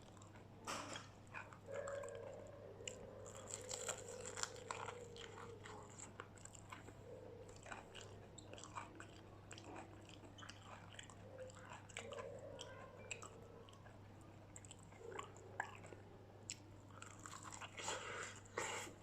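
A person biting and chewing crispy fried chicken, with irregular crunching crackles throughout.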